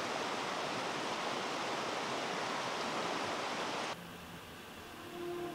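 Steady rush of running water that cuts off abruptly about four seconds in. After the cut, faint music begins and slowly grows louder.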